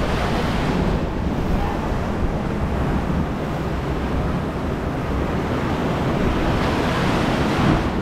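Churning whitewater of an Intamin river rapids ride rushing around and against a round raft, heard from on board, with water splashing up over the raft near the end.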